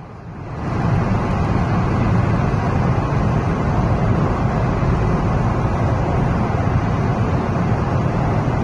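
Steady road rumble of a car driving through a highway tunnel, heard from inside the cabin. It swells up over the first second, then holds level.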